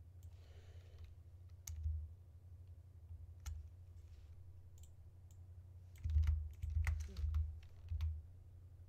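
Computer keyboard typing: a few scattered keystrokes, then a quick run of about five heavier strokes from about six seconds in, over a steady low hum.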